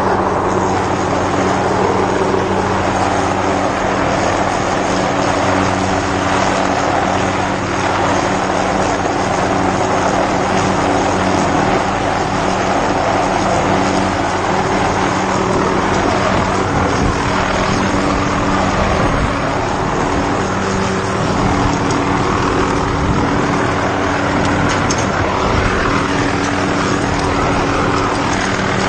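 Helicopter running steadily: a continuous engine and rotor sound with a steady hum underneath.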